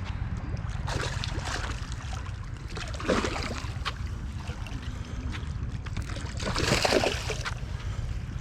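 Water splashing in three noisy bursts, about a second in, near three seconds and loudest near seven seconds, over a steady low wind rumble on the microphone.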